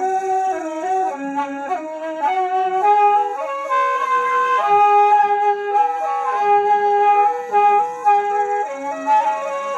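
Toraja suling, a long bamboo flute, playing a slow melody of held notes that step up and down with no breaks for breath.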